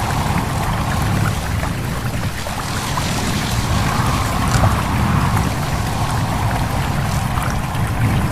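Stream babbling with wind blowing: a steady rush of running water with a low rumble, and a faint wavering whistle of wind that swells and fades.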